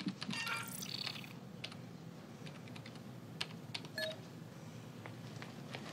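Sparse clicks and taps of keys on a control-room console keyboard, over a low steady hum, with a short electronic beep about four seconds in.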